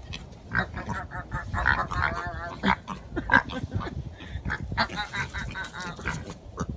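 Pig giving a rapid run of short nasal grunts and squeals, some with a wavering pitch, while it noses along the ground.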